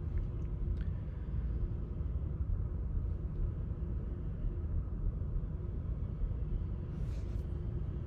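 A 2019 Chevy Equinox's 1.5-litre turbocharged four-cylinder engine idling with a steady low rumble. It is running rough with a misfire, logged as code P0300, with cylinder 4 currently misfiring.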